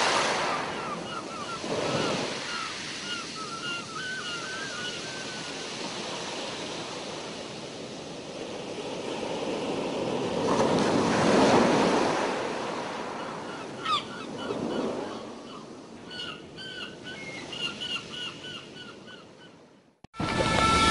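Sea waves washing, swelling and ebbing in surges, with wind on the microphone. Faint runs of quick high chirps come through during two spells, and the sound cuts off abruptly just before the end.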